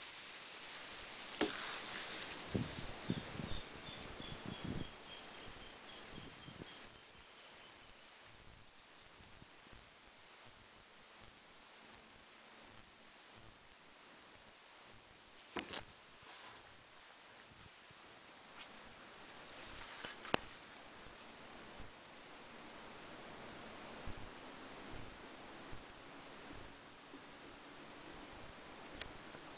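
A steady, high-pitched chorus of insects with a faint even pulsing over it. There are two sharp knocks, one about halfway through and another a few seconds later.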